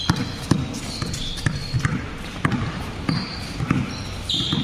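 A basketball being dribbled on a hard court, bouncing about every half second, with short high squeaks among the bounces.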